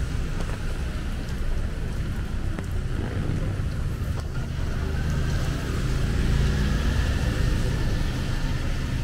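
Traffic on a rain-wet city road: cars and motorbikes passing over a steady hiss of rain and wet tyres, with a low engine rumble that swells in the second half.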